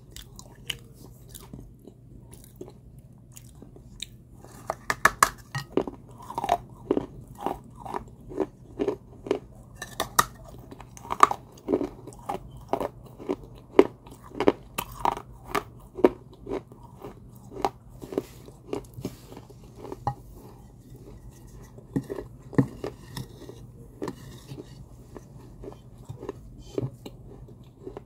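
Pieces of an unglazed terracotta clay pot being bitten and chewed close to the microphone. A quick run of crisp crunches starts about five seconds in and thins out over the last several seconds.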